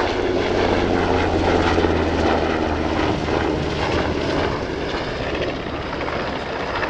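NH90 helicopter's main rotor and twin turbine engines running steadily as it flies a display pass, easing off slightly in the second half.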